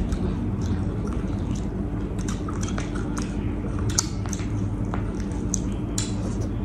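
People chewing and biting into sticky, sauce-coated Korean spicy fried chicken wings, with scattered short wet mouth clicks over a steady low hum.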